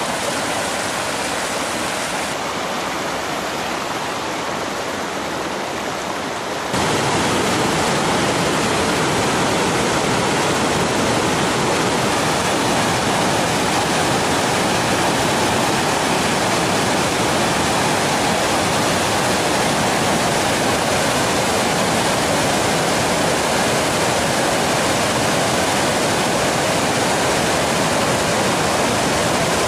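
Whitewater rapids rushing over and between boulders: a steady rush of water that jumps louder and fuller about seven seconds in.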